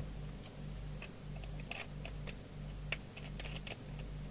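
Scattered small clicks and ticks of an aerial plug being connected to a CB radio, over a low steady hum.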